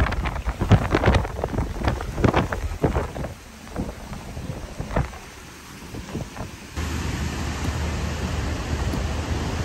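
Hurricane-force wind buffeting the microphone in rumbling, crackling gusts over storm-surge waves washing across a flooded lot; the gusts ease about three seconds in. About seven seconds in it gives way to a steady rush of wind over flowing floodwater.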